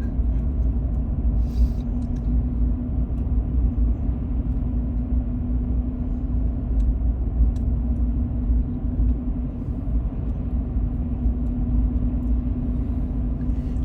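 Car interior road noise while driving: a steady low rumble of tyres and engine with a constant drone.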